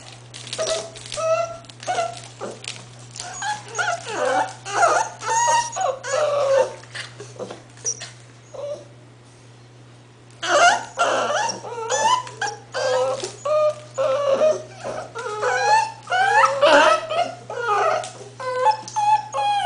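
English Bull Terrier puppies whimpering and yipping, many short whines in quick succession. They stop for about two seconds midway, then start again.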